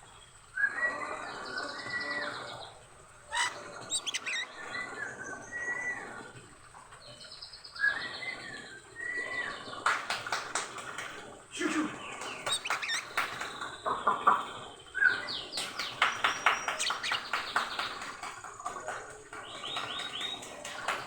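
Oriental magpie-robin (kacer) singing vigorously, as a male in full breeding condition does. It sings varied phrases of whistles and chatter with short pauses, and becomes denser and faster from about halfway on.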